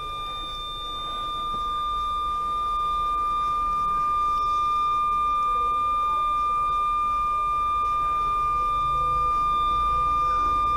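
A continuous electronic beep: a single high, steady tone held without a break, growing slightly louder over the first few seconds, over a low background rumble.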